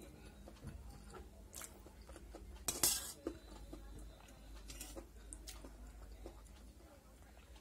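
A metal spoon clinking and scraping against a stainless steel plate while scooping up pasta: scattered light clinks, with a louder cluster about three seconds in.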